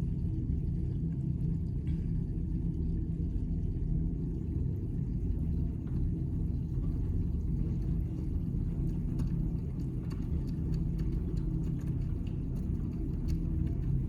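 Miele W1 front-loading washing machine running its main wash with a heavy load of towels: a steady low rumble from the turning drum, with faint light ticks scattered through the second half.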